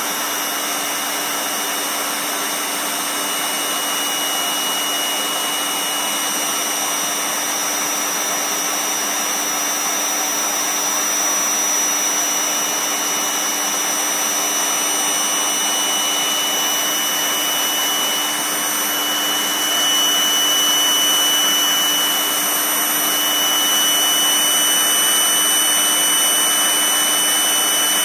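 Mains-powered (AC) electric air pump running steadily, blowing air into an exercise ball: an even whirring rush with a few constant tones, getting slightly louder about twenty seconds in.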